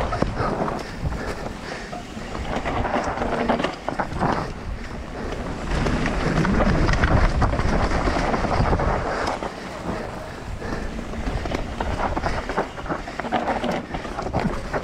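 Mountain bike descending a dusty dirt trail at speed, heard from a camera on the bike: wind rushing over the microphone, tyres scrubbing on dirt, and the bike clattering over bumps in many short knocks.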